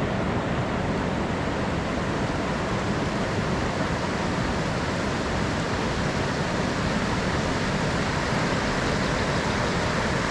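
River rapids: a steady, even rush of white water.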